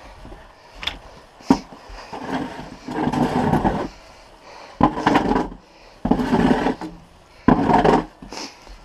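Snow shovel scraping and scooping snow in four long strokes about a second and a half apart, with a sharp knock of the blade about a second and a half in.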